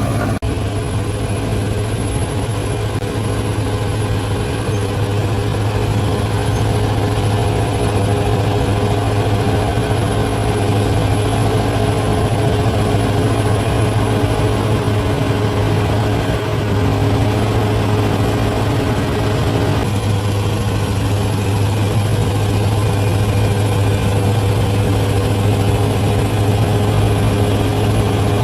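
Large bulldozer's diesel engine running steadily, with a constant deep drone.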